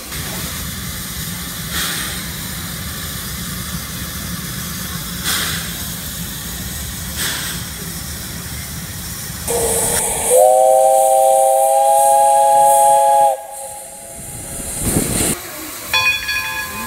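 Steam locomotive 8630 (a JNR Class 8620) standing in steam, with a steady hiss and low rumble. About ten seconds in, a short burst of steam leads into one long blast of its steam whistle, a chord of several tones lasting about three seconds. A brief ringing sounds near the end.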